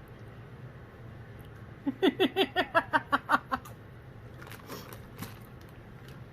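A burst of human laughter, about two seconds in: a quick run of about ten short pitched "ha" sounds lasting under two seconds.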